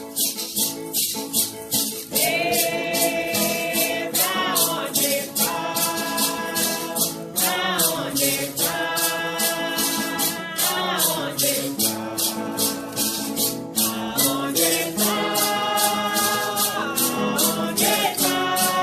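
A song with a shaker keeping a steady beat of about three strokes a second. Sung vocals come in about two seconds in and run on in phrases.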